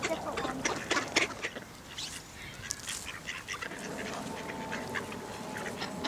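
Mallard ducks quacking as a crowd of them is fed, with many short clicks and rustles among them.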